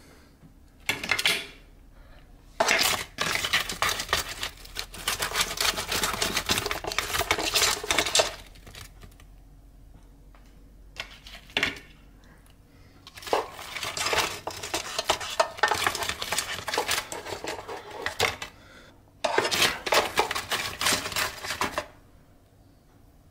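A spoon scraping and clattering against the perforated Power XL air fryer basket and the plate as cooked chicken wings are scooped out, in several stretches of rattling a few seconds long with short pauses between.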